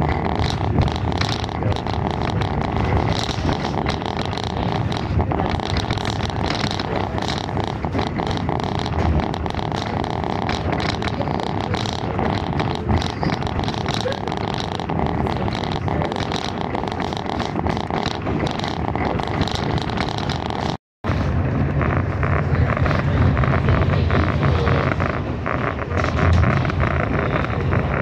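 Ride noise of a moving passenger train, heard from aboard: a steady rumble of wheels on the rails with frequent short clicks and clatter. The sound cuts out for a moment about 21 seconds in, and the low rumble is heavier after it.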